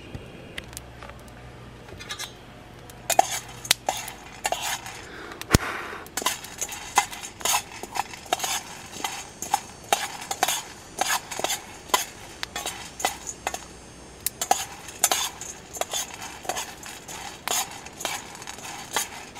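Coffee beans being stirred around a metal pan: irregular scraping clinks and bean rattles against the pan, about one or two a second, starting a few seconds in.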